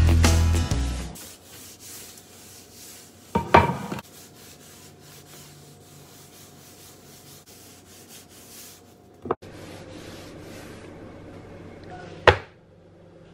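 A paper towel rubbing and wiping across a granite countertop, broken by a few sharp knocks; the loudest, near the end, fits a wooden cutting board being set down on the counter. Background music fades out in the first second.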